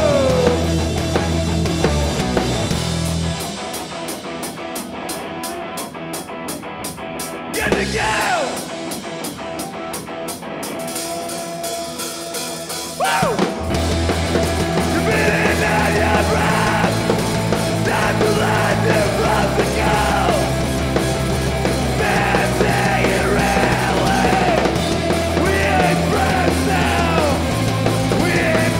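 Live rock band with guitars, bass, drums and yelled vocals. A few seconds in the bass and low end drop away into a quieter break. The full band comes back in about 13 seconds in, with the shouted singing over it.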